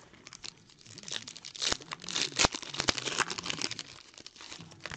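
Plastic foil wrapper of a trading card pack being torn open by hand, crinkling and crackling in quick irregular bursts that are densest in the middle.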